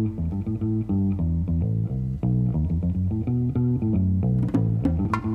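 Background music built on plucked bass and guitar notes in a steady run; light clicking percussion comes in about four seconds in.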